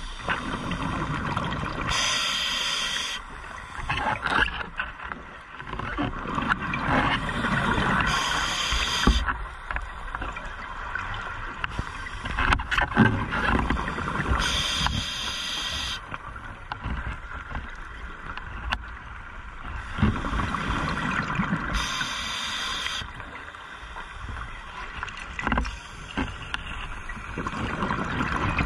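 Scuba diver breathing through a regulator underwater: a short hissing inhale about every six to seven seconds, each followed by a long gurgling rush of exhaled bubbles.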